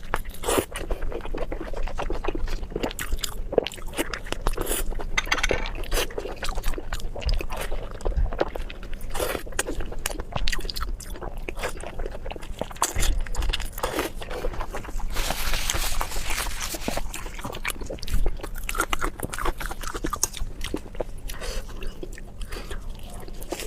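A person eating close to the microphone: biting and chewing with crunching, in many short, irregular clicks, with a denser stretch of mouth noise about two-thirds of the way in.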